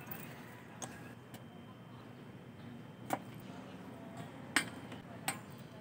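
A few sharp metallic clinks and taps, about four spread over several seconds, against a low steady hum.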